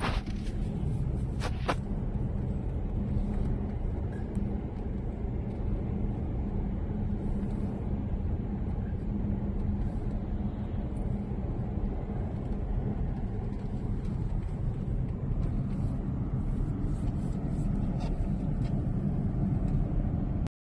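Road noise inside a moving car's cabin: a steady low rumble of tyres and engine. Two brief sharp clicks about a second and a half in.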